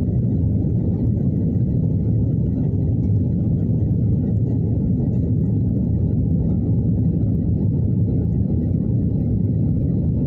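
Steady low rumble inside the cabin of an Airbus A350-900, from its Rolls-Royce Trent XWB-84 engines at high thrust and the rushing air, heard from a seat behind the wing. It stays even throughout, with nothing standing out.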